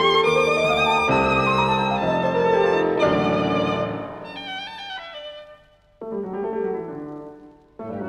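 Background music: a slow melody with vibrato over held chords. It fades away about four to six seconds in, and new phrases start at six seconds and again just before the end.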